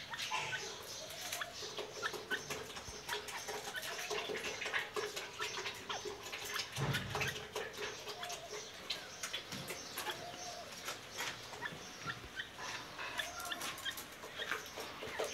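A caged partridge (titar) making soft, short calls, with scattered light clicks and chirps throughout.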